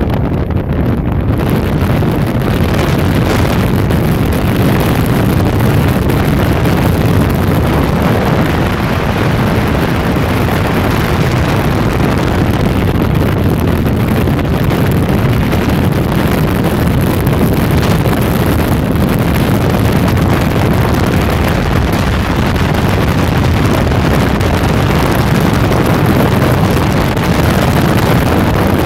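Yamaha AR190 jet boat under way at speed: a steady, loud engine and jet-drive drone mixed with heavy wind buffeting on the microphone.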